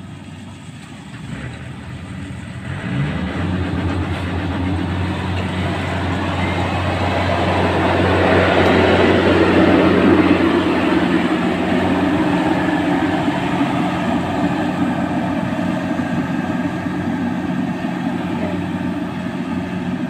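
Engine of a rice combine harvester running as the machine drives close past, a steady low hum that grows louder from about three seconds in, peaks around ten seconds, then holds steady.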